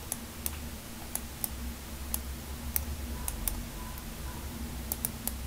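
Computer mouse clicking irregularly, about a dozen short sharp clicks over a steady low hum, as curve control points are selected one by one.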